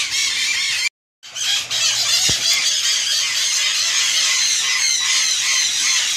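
A flock of aviary parrots chattering and squealing, a dense, continuous mass of short high-pitched calls, broken by a brief gap about a second in.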